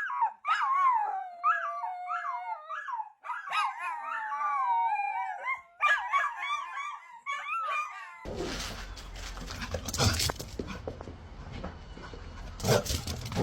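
A dog whines and howls in a run of high, wavering cries. About eight seconds in, this gives way abruptly to a rough rustling noise with a couple of knocks.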